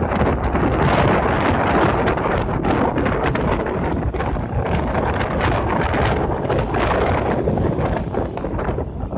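Strong wind gusting against the microphone, a dense, rumbling rush, with storm surf beneath it.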